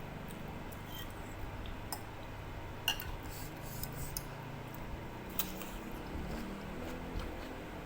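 Eating noodle soup: a spoon or fork clicking against a bowl several times, over the steady hum of an electric fan.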